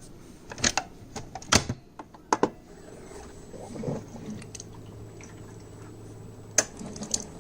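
A few sharp plastic clicks and knocks as the coffee maker is set up and started for a 12-ounce brew, then a steady low hum from the machine starting up at about three and a half seconds in, with one more click near the end.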